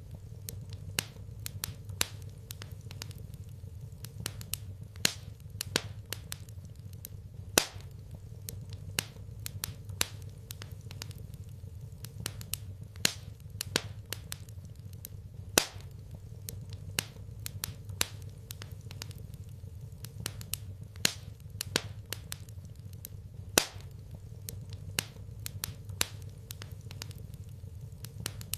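Wood fire crackling in a fireplace: irregular sharp pops and snaps, several a second, a few much louder than the rest, over a steady low hum.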